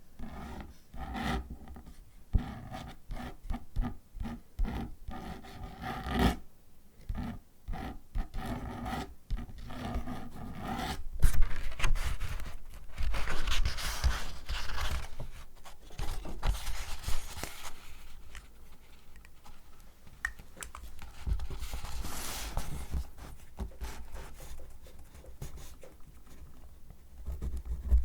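Paper and packaging handled close to the microphone: quick scratching strokes about twice a second, then a louder, longer rustling crinkle.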